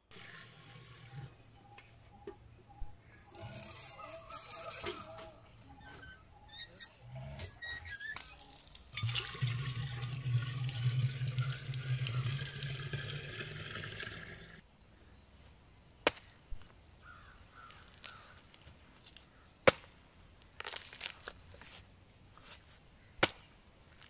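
Water poured from a metal bucket into a metal water pot, in several pours, the longest lasting about five seconds. Later come a few sharp knocks.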